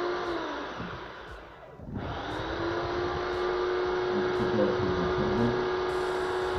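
Choppy Squality blender's motor being test-run after repair, running with a steady whine. It winds down about half a second in, then starts again about two seconds in and runs steadily.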